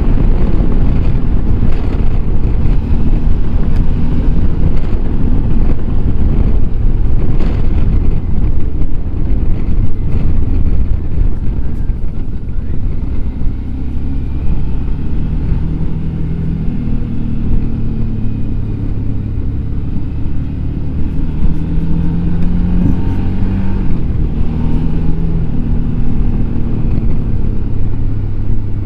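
Suzuki V-Strom DL650 XT's V-twin engine running under way, with wind rush on the onboard microphone. The engine note steps and glides up and down several times as the throttle and gears change.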